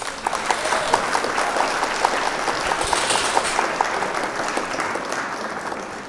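A crowd applauding, dense clapping that tapers off near the end.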